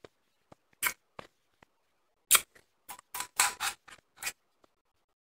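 Crisp crunches of fine, snow-textured blender-crushed ice being chewed. Single crunches come first, then a quick run of several just past the middle and one more near the end.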